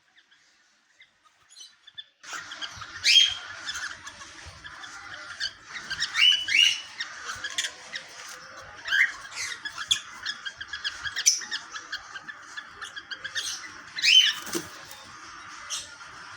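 Cockatiels calling: after about two seconds of near silence, a steady chatter of many birds sets in suddenly, with several loud, sharp rising calls standing out above it.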